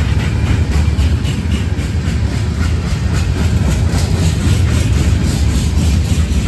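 Freight cars of a passing CSX train rolling by: a steady low rumble of wheels on rail with quick repeated clicks as the wheels cross rail joints.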